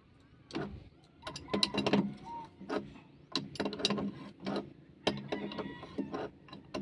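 Hand ratchet wrench clicking in several short runs as the bolt holding an excavator bucket tooth is turned.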